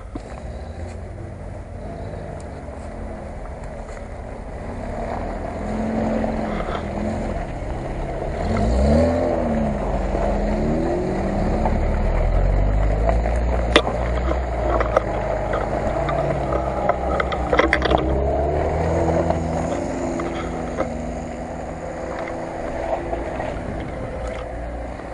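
A Lada Niva's engine revving up and down as it churns through deep mud on a rutted track, wheels slipping. It grows louder as the car draws close, with a couple of sharp knocks midway, then fades as it drives away.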